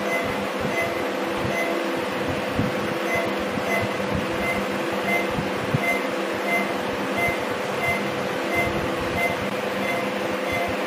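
Steady room hum and hiss of running equipment, with a faint short high beep repeating about every 0.7 seconds.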